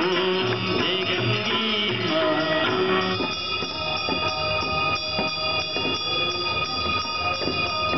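Devotional aarti music over loudspeakers, with singing and drum beats, stopping about three seconds in. After it, a steady high ringing carries on.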